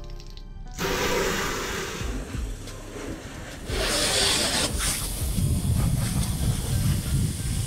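Water spraying from a pistol-grip garden hose nozzle onto a pickup truck's body and glass, a hissing, splattering spray. It grows louder about four seconds in, with a low rumble under it in the second half.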